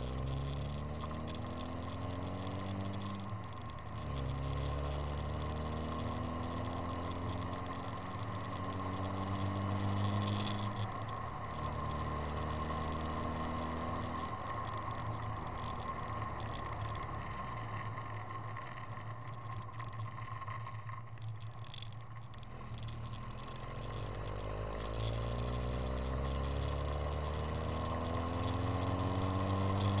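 Car engine pulling through the gears as the car accelerates: the engine note climbs, drops at a gear change and climbs again several times, with a steadier stretch in the middle. Heard from a camera mounted outside the car, with wind on the microphone.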